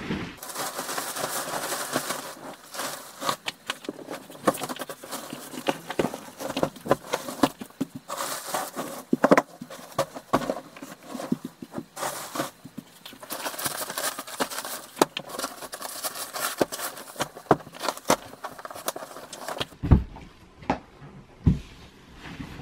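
Bedding rustling and flapping as a duvet cover is pulled off and a duvet is handled, with many small crackles in the fabric noise. Near the end a few soft thumps as pillows are set on the mattress.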